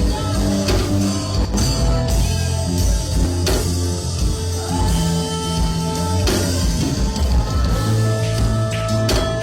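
Band music: guitar with bass and drums, held notes over a strong low end.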